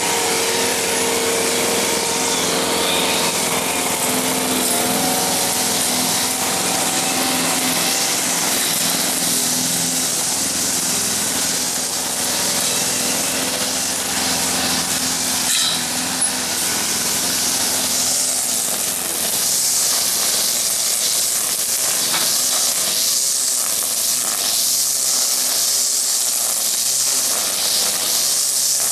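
A rotary lawn mower's engine runs steadily as it cuts grass. Later it gives way to the higher, rasping run of an engine-driven brush cutter trimming the lawn.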